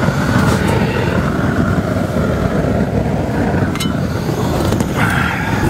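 Propane roofing torch burning steadily, heating torch-down modified bitumen membrane to bond it to the base.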